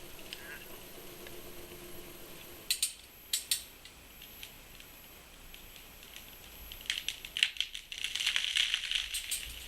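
Blue gum tree being felled: a few sharp cracks of breaking wood about three seconds in, then from about seven seconds a quickening run of cracks building into a crackling rush of branches and leaves as the tree goes over.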